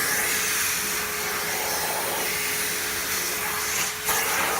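Vacuum cleaner running steadily with a constant hum over a rushing hiss, its nozzle being worked over the pet's coat. About four seconds in, the sound briefly dips and then comes back.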